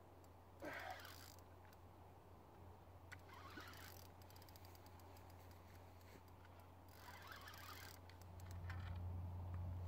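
Faint rustling and a few sharp clicks from a fishing rod and fixed-spool reel being handled while a hooked carp is played, over a steady low hum.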